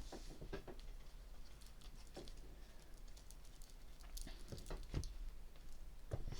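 Tarot cards being handled on a table: scattered light taps and clicks, a few of them sharper, about a second apart.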